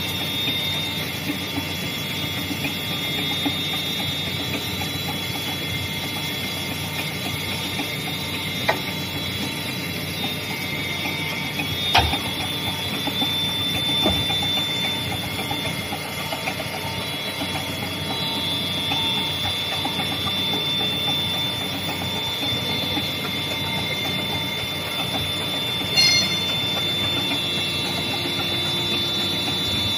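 Rotary forging press running: a steady, dense mechanical rattle with high whining tones, broken by a few sharp knocks, the loudest about twelve seconds in.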